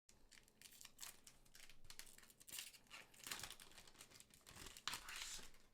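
Faint crinkling and tearing of a trading-card booster pack's foil wrapper as it is handled and opened, in many short crackles.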